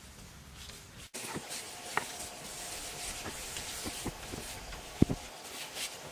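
Scattered soft knocks and scuffs of someone working in loose soil over a steady high hiss. About five seconds in there is one sharp thump as a wooden digging stick strikes the dirt.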